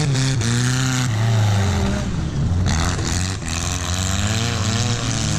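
Junkyard race cars' engines revving hard as they race and slide past on a loose dirt track, their pitch rising and falling, over the rush of tyres throwing dirt.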